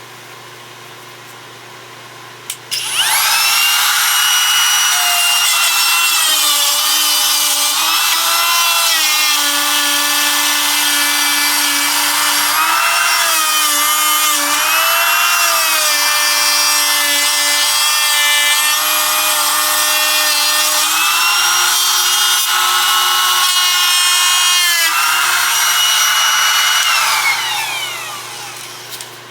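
A plunge router starts up about three seconds in and runs at high speed, its pitch dipping several times as the bit cuts into MDF. A few seconds before the end it is switched off and winds down.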